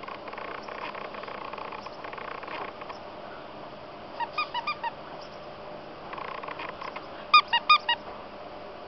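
Squeaky plush dog toy squeaked as a small dog chews it: a quick run of four squeaks about four seconds in, and another louder run of four near the end, with soft scuffling in between.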